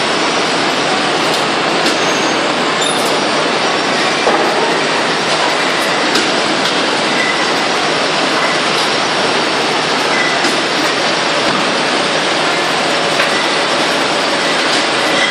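Bottling line running: a Kettner Crater case packer and its conveyors moving glass beer bottles from crates into cartons, a loud, steady clatter of machinery and bottles with a few sharp clicks.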